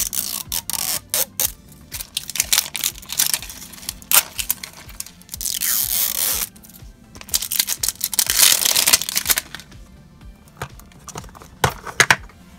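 Plastic wrapping crinkling and tearing as it is peeled off a Toy Mini Brands capsule ball, in several long rustling stretches. Near the end the hard plastic capsule clicks open. Background music plays underneath.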